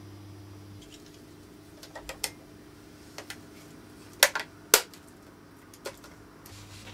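A handful of irregular sharp clicks and knocks as a small white electronic device is handled and worked by hand, the two loudest about half a second apart a little past the middle. A low steady hum drops away about a second in and comes back near the end.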